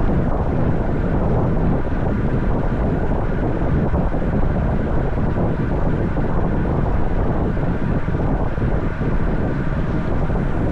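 Steady wind noise buffeting the action camera's microphone during a bicycle ride, a loud even rush with no breaks.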